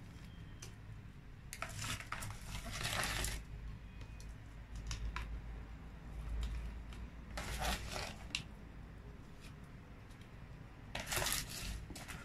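Liquid poured from a drinking glass over cubed watermelon rind in a glass jar, in three short splashing spells, with scattered light clicks of glass.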